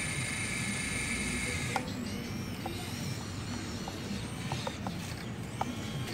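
Toy RC excavator's small electric motors and plastic gearboxes: a steady high whine that stops with a click about two seconds in, then short whirs rising and falling in pitch as the upper body slews, with a few sharp clicks.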